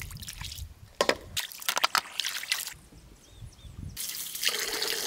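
Hands splashing in shallow muddy water, with sharp splashes and drips, while freshwater mussels are dug out. About four seconds in, water sloshes steadily in a basin as the mussels are washed by hand.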